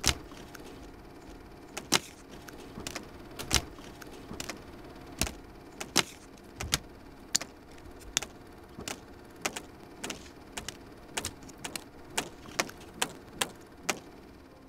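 Irregular sharp clicks and crackles, about two or three a second, over a steady faint hiss and low rumble.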